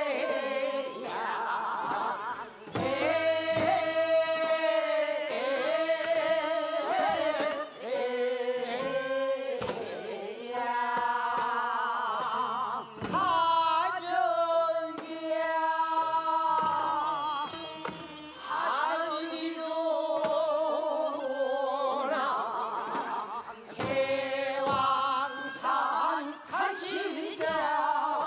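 Korean ssitgimgut shamanic ritual music: a singer's voice with heavy wavering vibrato over traditional Korean instrumental accompaniment, punctuated by sharp drum strokes.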